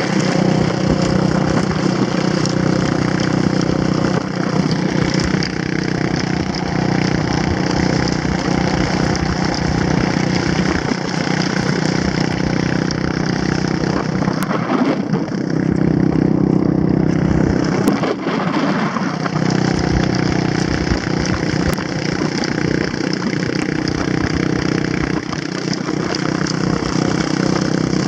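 Quad (ATV) engine running steadily as it tows a sled over snow, over a constant rushing noise. The engine note swells and shifts briefly about halfway through.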